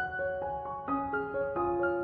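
Background music: a gentle keyboard melody, piano-like, with a new note every quarter to half second.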